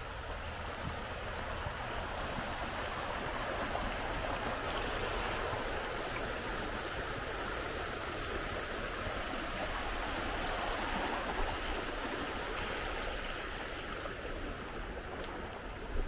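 Creek water rushing over shallow rapids, a steady rush that grows louder through the middle and eases off near the end.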